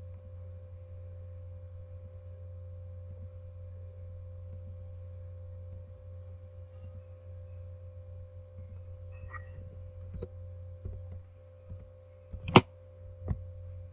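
Steady electrical hum, a low drone with a thin higher tone over it. Near the end come a few sharp clicks of computer keys and mouse buttons, the loudest about a second before the end.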